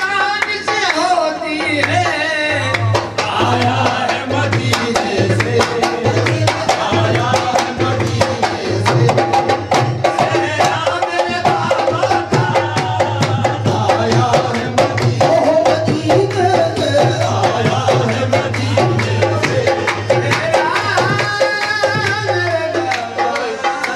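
Qawwali music: voices singing over a steady tabla and drum beat of about two beats a second, with the low drum beat dropping out near the end.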